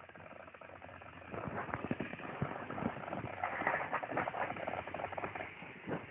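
Irregular light clicking and clattering, a dense patter of small knocks that builds about a second in and thins out near the end, with one sharper knock just before the end.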